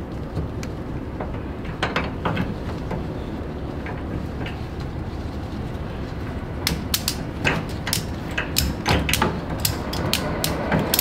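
Ratchet tie-down strap being cranked tight, its pawl clicking: a few single clicks early, then quick runs of clicks from about halfway on, over a steady low rumble.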